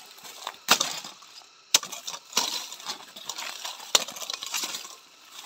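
Footsteps through dry leaf litter and undergrowth, rustling and crunching, with three sharp snaps of breaking twigs.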